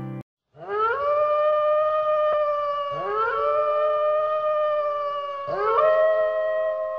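Wolves howling: long howls that each rise in pitch and then hold steady, a new one starting about every two and a half seconds and overlapping the last. They begin just after the song's last note cuts off.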